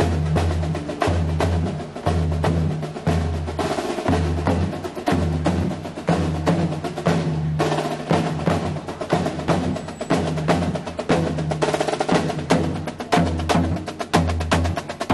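Majestic marching bass drum and snare drum playing a marching cadence: quick snare strokes and rolls over bass drum beats that ring about once a second.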